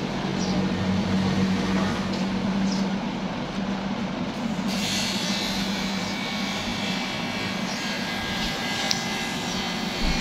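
Steady background noise with a low hum that fades about three seconds in, more hiss from about five seconds in, and a few faint ticks.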